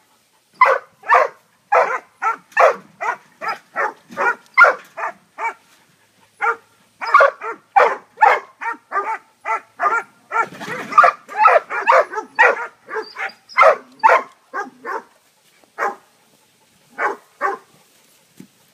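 Hog dogs baying a cornered hog: a quick string of barks, about two a second, with a harsher, denser stretch around the middle, thinning to a few scattered barks near the end.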